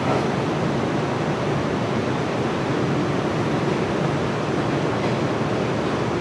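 JR East Series 115 electric multiple unit pulling away from the platform, a steady running noise of the train moving on the track.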